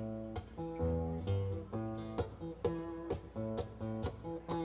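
Live band music: guitar over a steady beat of about two strokes a second.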